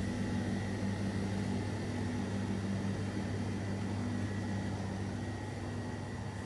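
Steady mechanical hum with a constant low drone and a faint high whine, unchanging throughout.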